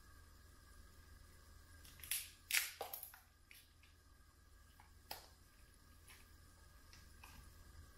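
Cooked lobster shell being cracked and picked apart by hand: a cluster of sharp cracks and crunches about two to three seconds in, a single crack about five seconds in, and a few fainter snaps, over a faint low hum.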